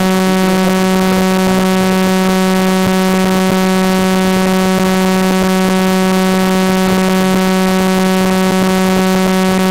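Audio of an oscilloscope demo, the FLAC signal that draws the picture on the oscilloscope screen: a steady synthetic tone at one low pitch with a buzzy edge, held unchanged.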